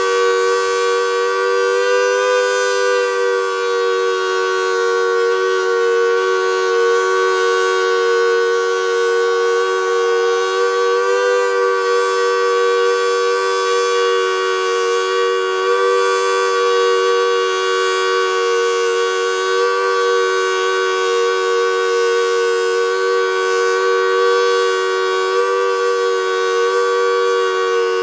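Federal Signal Model 2T dual-tone electromechanical siren sounding a full alert: a loud, steady two-note chord whose pitch wavers slightly. The unit is old and ailing, and is reported to be showing its age.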